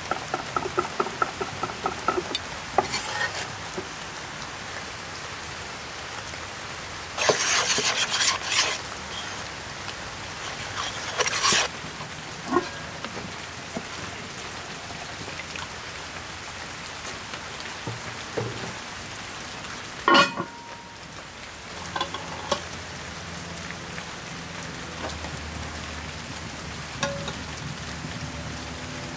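A knife chopping thyme on a wooden board in quick strokes for the first couple of seconds, over a steady hiss of rain. Partway through, water is poured from a bottle into a cast-iron Dutch oven, and about twenty seconds in there is a single sharp clank.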